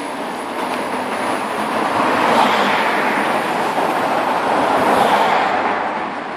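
Audi R8 V10 with a modified exhaust running while stationary, rising twice in revs, about two seconds in and again near five seconds, before settling back.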